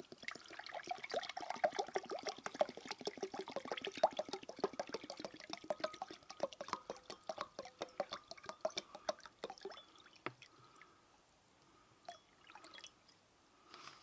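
Water poured from a bottle into a glass measuring jug, gurgling with rapid pulses as the jug fills to the one-pint mark. The pour stops about ten seconds in, followed by a few faint knocks.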